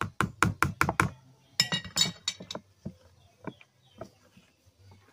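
A wooden spoon knocking against a mesh strainer and plastic mixing bowl: about five quick taps a second for the first second, a flurry of brighter clinking taps around two seconds in, then a few scattered softer knocks.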